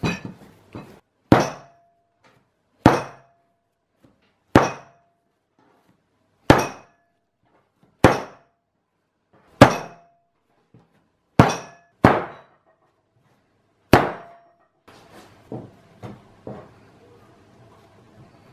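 Bread dough slammed down hard onto a wooden table again and again during kneading: about ten sharp slaps, roughly one every one and a half seconds, each with a brief ring. A few softer knocks follow near the end.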